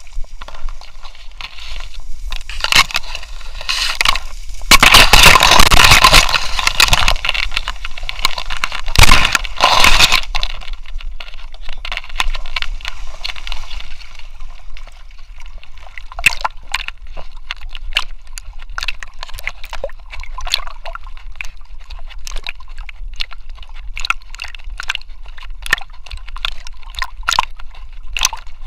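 Weimaraner wading and swimming through a reed bed, heard close from a camera on its back: water sloshing and splashing, loudest in a rush of noise from about five to ten seconds in, then many short crackles and scrapes as reed stems brush past.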